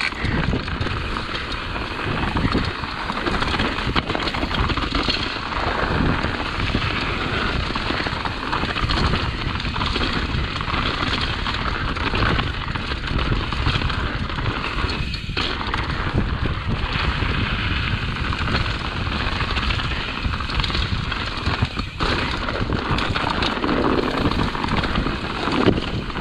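Mountain bike being ridden over rocky dirt singletrack: a continuous crackling and rattling of tyres on dirt and rocks and the bike clattering, with a steady low rumble of wind on the microphone.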